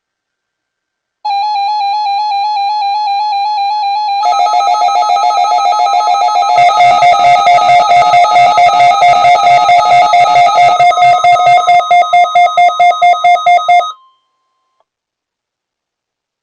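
Electronic ringtone-style tune of rapidly pulsing tones, built up in layers: a higher line first, a second line about four seconds in, and a lower beat with quick pulses from about six and a half seconds, stopping abruptly near the end.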